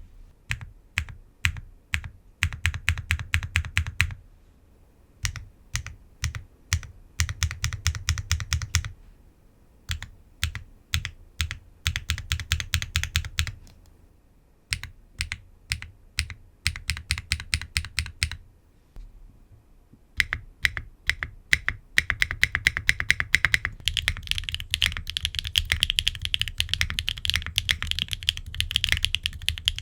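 Typing on a mechanical keyboard with HMX Yogrut S linear switches, in a gasket-mounted aluminum case with aluminum plate, no foam and ABS double-shot Cherry-profile keycaps. Bursts of keystrokes broken by short pauses give way to fast, continuous typing for the last several seconds.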